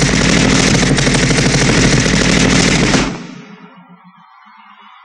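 Staged machine-gun fire, played in time with prop guns spitting sparks: a dense, rapid rattle of shots with heavy bass. It cuts off suddenly about three seconds in, leaving only a faint background.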